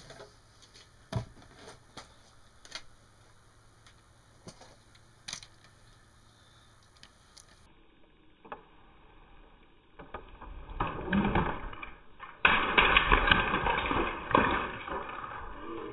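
Scattered sharp clicks and knocks of LEGO pieces being handled, then about ten seconds in a few seconds of loud, dense clattering and rustling.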